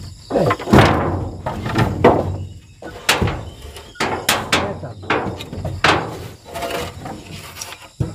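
Irregular hammer blows, about a dozen sharp knocks over several seconds, each with a short ringing decay, during work building a wall.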